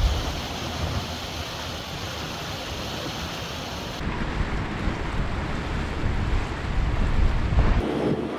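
Wind buffeting the microphone, with rushing water from a fast-flowing flooded river under a narrowboat. The sound shifts abruptly about halfway through and again near the end.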